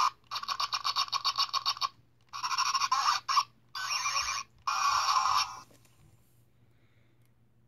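Zhu Zhu Puppies electronic plush dog toy playing its built-in sound effects through a small speaker: a run of rapid even pulses, then several short bursts, stopping about five and a half seconds in.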